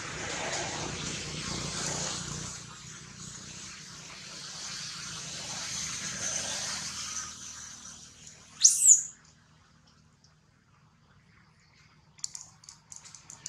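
Dry leaf litter rustling for the first seven seconds or so. About nine seconds in, a short, sharp rising chirp sounds twice in quick succession; it is the loudest sound. A few faint clicks follow near the end.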